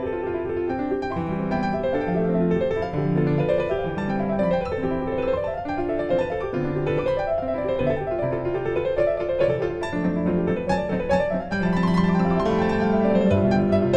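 Background piano music: quick runs of notes climbing and falling over held low notes.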